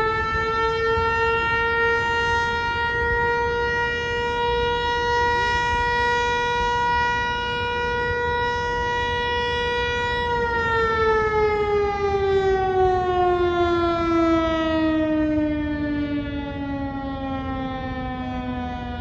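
Outdoor warning siren sounding a steady tone, then winding down about halfway through, its pitch falling smoothly.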